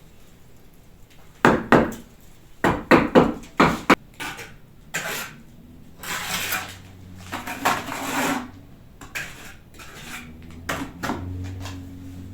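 Brick masonry work: a cluster of sharp knocks and taps of a tool on brick, then several longer scraping strokes, then a few more taps, as a brick is set and trimmed in clay mortar.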